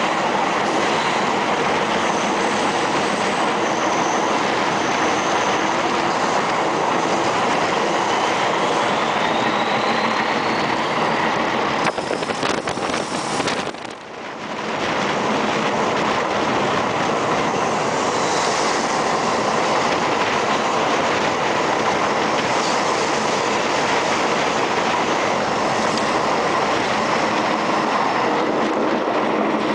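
Diesel-hauled train running along the line, heard from an open coach window just behind the locomotive: a steady rumble and clatter of wheels over the rail joints. The sound drops away briefly about halfway through.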